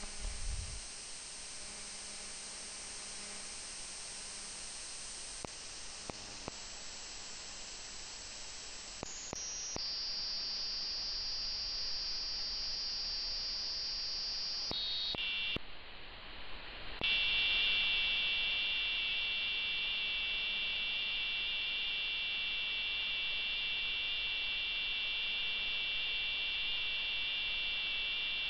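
Audio output of a software-defined radio demodulating AM at about 65 kHz: steady hiss that turns duller in steps as the receive bandwidth is narrowed. About 17 seconds in, a cluster of steady high tones comes in and holds, buzzing like an alarm.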